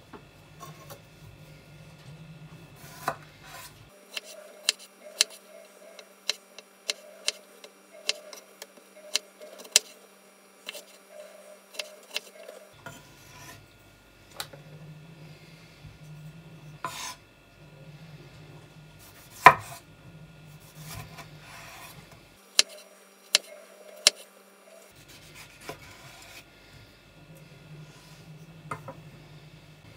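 Kitchen knife slicing and dicing tomatoes on a wooden cutting board: irregular sharp taps of the blade striking the board, the loudest about two-thirds of the way through.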